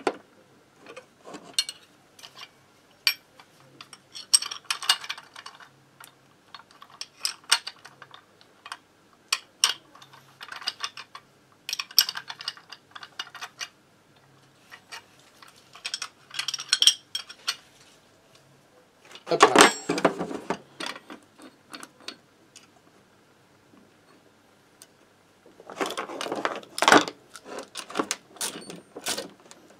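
Metal tools and engine parts clinking and clattering on a workbench as a bearing puller is adjusted with a wrench and fitted to a moped engine's crankcase. Two louder clatters come, one about two-thirds through and one near the end.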